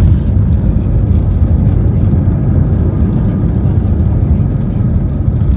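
Loud, steady low rumble of an Airbus A319 heard from inside the cabin during its landing.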